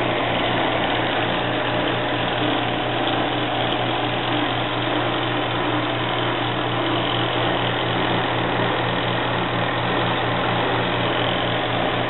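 Della twin-tub mini washing machine's spin-dryer tub spinning a load of two wet towels: a steady motor hum with a low, regular throb underneath as the water is spun out.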